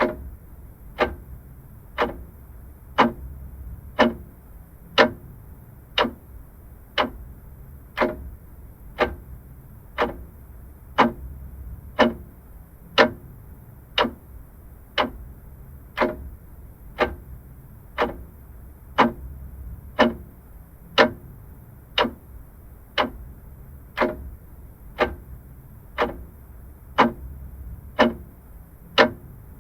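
Vintage mechanical clock ticking steadily at about one tick a second, with every other tick slightly louder, over a faint low hum.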